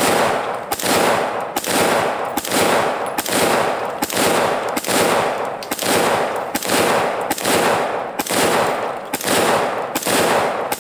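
AR-15 rifle firing 5.56 rounds semi-automatically in a steady string, about thirteen shots a little under a second apart, each shot ringing out before the next.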